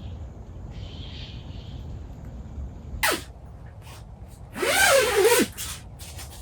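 Animal vocalising: a short, sharp call dropping in pitch about three seconds in, then a louder, longer, wavering call a second and a half later.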